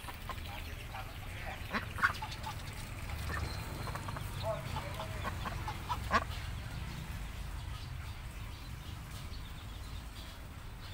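White domestic ducks quacking in short, scattered calls. The loudest come about two seconds in and again about six seconds in.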